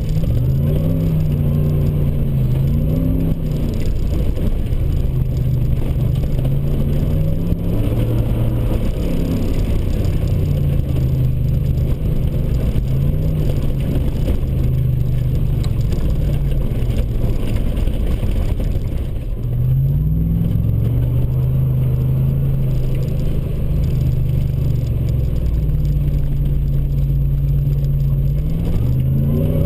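Ford Raptor pickup driving a dirt trail, heard from inside the cab: the engine note climbs and falls again and again as the throttle is worked, over a steady rumble from the tyres and the road. About nineteen seconds in it dips briefly, then climbs again.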